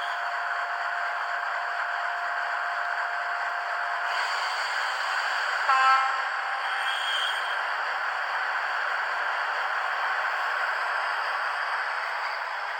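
Sound decoder of an HO-scale Victorian Railways T class diesel model locomotive, playing locomotive sounds through its small speaker: a steady, thin running sound with no bass, and a brief horn toot about six seconds in.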